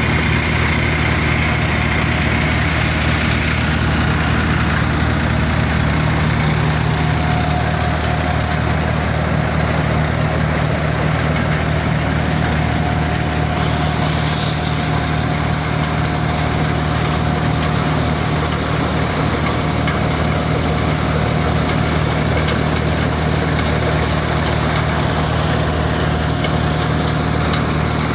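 Tractor engine running steadily, powering a maize thresher. A faint steady whine joins in about a quarter of the way through.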